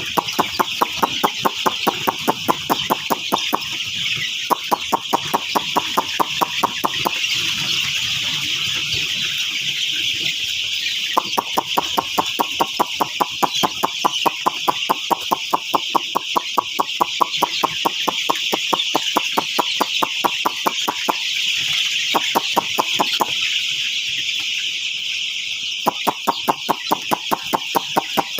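A large flock of young broiler chicks peeping all at once in a dense, steady chorus, with a fast, even ticking running through it.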